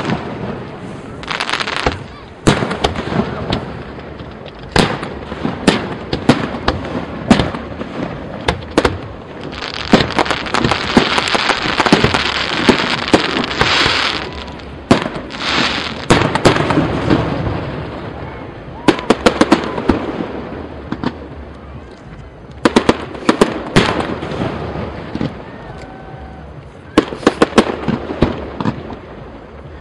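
Aerial firework shells bursting: many sharp bangs in quick succession, with a long dense stretch of crackling from about ten to fifteen seconds in.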